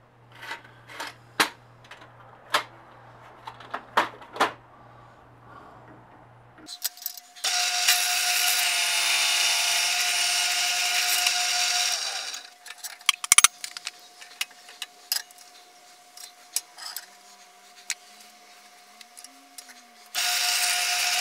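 Bench drill press drilling through a rusty steel winch gear, steel the owner suspects has work-hardened. A few sharp metallic clicks and taps come first; about a third of the way in the motor starts and runs with a steady hum, and the bit cuts loudly for about five seconds, then again near the end.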